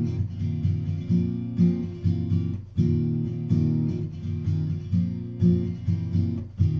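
Acoustic guitar strummed in a steady rhythmic pattern of chords, with the strings briefly damped twice, a little under three seconds in and near the end.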